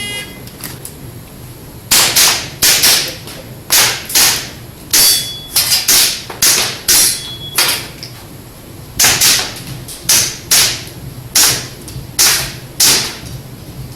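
A shot-timer start beep, then an airsoft pistol firing a string of about twenty sharp shots, some in quick pairs, starting about two seconds after the beep: an IPSC practical-shooting stage being run.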